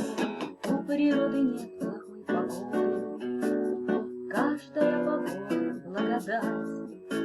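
Instrumental song accompaniment led by a strummed acoustic guitar, with chords played in a steady rhythm.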